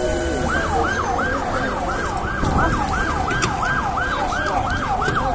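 Emergency vehicle siren in a fast yelp, rising and falling about three to four times a second, starting about half a second in.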